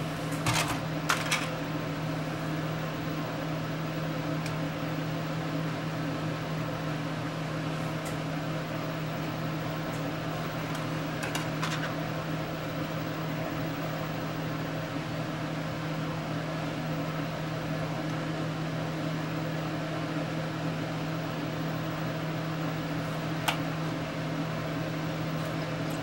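Pioneer PD4300 CD player's spindle motor spinning a stamped disc that the player is struggling to read, a steady whirring hum. A few light clicks come near the start, around the middle and near the end.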